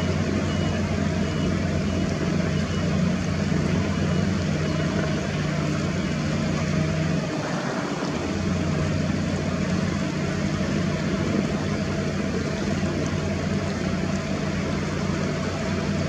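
A steady low engine drone, with a faint high-pitched beep repeating about twice a second for the first five seconds.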